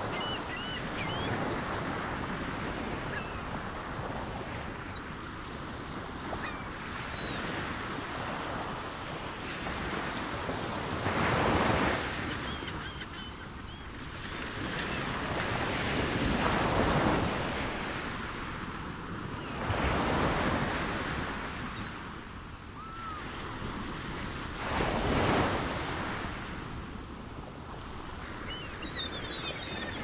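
Sea waves washing in, a steady hiss of water that swells into a louder surge every few seconds, with faint bird calls over it.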